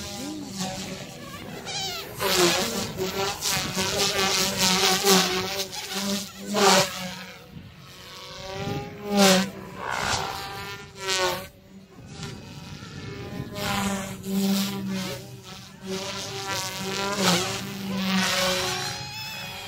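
Goosky S2 electric RC helicopter flying 3D aerobatics: a buzzing whine from the rotors and brushless motor that repeatedly rises and falls in pitch and loudness as it manoeuvres.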